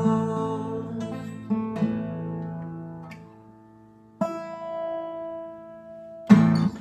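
Acoustic guitar playing the song's closing bars: strummed chords ring out and fade, and a single picked note rings about four seconds in. A sharp final strum comes near the end.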